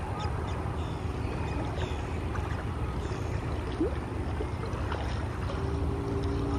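Outboard motor of a small open boat running at speed while towing an inflatable life raft, over a steady low rumble. A steady engine drone comes through more clearly about five and a half seconds in.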